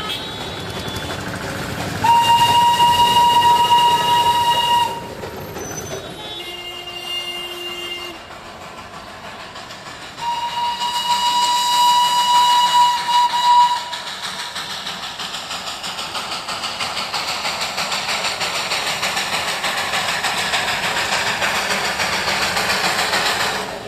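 Darjeeling Himalayan Railway toy train sounding its horn in two long steady blasts of about three seconds each, with a quieter, lower note between them. The train then runs with a steady rhythmic clatter that grows louder over several seconds.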